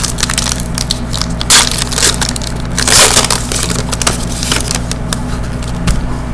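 Hockey trading cards and pack packaging handled close to the microphone: rustling, crinkling and light clicks, with louder crackles about a second and a half in and again about three seconds in, over a steady low hum.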